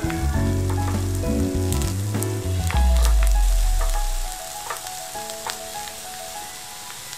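Chestnut sticky rice crackling and sizzling in a hot pot as a wooden spoon stirs through it, with small clicks and scrapes of the spoon. Background music plays over it, and its bass notes stop about four seconds in.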